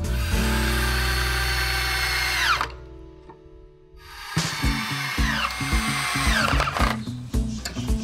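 Drill driving wood screws into a wooden batten, in two runs with a short pause between. Each run ends with the motor's whine falling sharply as the screw bites in and seats. Background music plays underneath.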